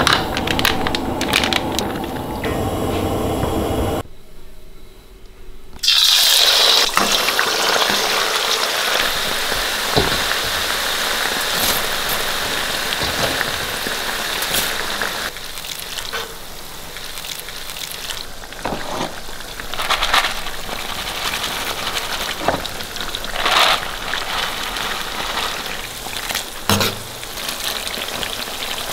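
Chili flakes and Sichuan peppercorns sizzling in hot oil in a wok. The sizzle starts suddenly about six seconds in, loudest at first, then settles into a steady frying noise. A few sharp knocks come from the metal ladle against the wok.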